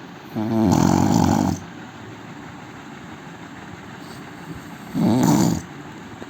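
A man snoring loudly: two rattling inhaled snores about four seconds apart. The first lasts about a second and the second is shorter.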